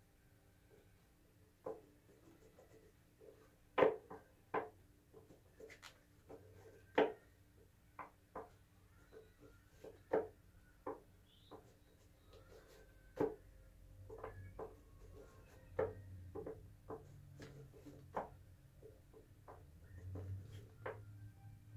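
A tarot deck being shuffled by hand: quiet, irregular clicks and taps of the cards, one or two a second.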